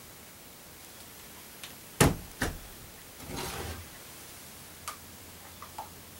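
Two sharp knocks about two seconds in as a bottle and a plastic measuring cup are handled on a wooden countertop, then a brief pour of castor oil from the measuring cup into a plastic tub, followed by a few light clicks.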